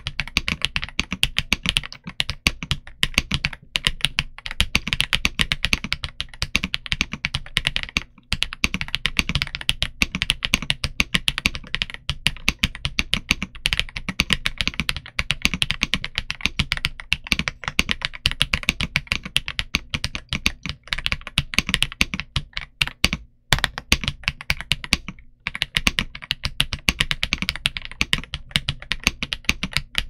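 Fast, continuous typing on an Ajazz AK820 Pro mechanical keyboard with Ajazz Flying Fish linear switches and DS PBT Cherry keycaps: a dense run of keystrokes, broken by a few brief pauses.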